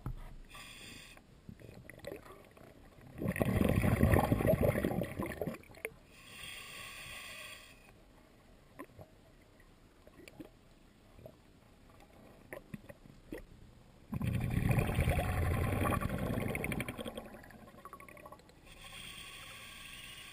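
Water heard underwater: two long, loud bursts of bubbling about ten seconds apart, with fainter hissing between them, typical of a diver's exhaled breath bubbles rising past the camera.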